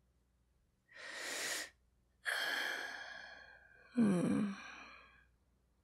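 A woman breathing: a short inhale about a second in, a long sighing exhale, then a voiced sigh that falls in pitch near the end.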